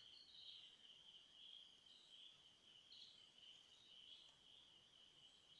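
Near silence, with a faint, steady high chirring of insects in the background.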